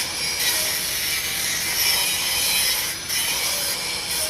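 A tool working on metal during a trolley jack repair: a harsh, steady rasp that breaks off briefly near the start and again about three seconds in.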